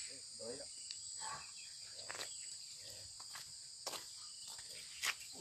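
Steady high-pitched chirring of insects, with faint distant voices and a few soft clicks.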